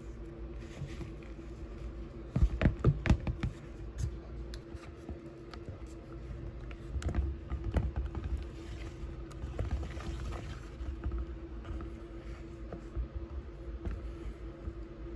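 Hand whisk beating cream cheese, butter and powdered sugar into icing in a bowl: irregular taps and scrapes against the bowl, with a run of quicker, louder knocks a few seconds in and again midway, over a steady low hum.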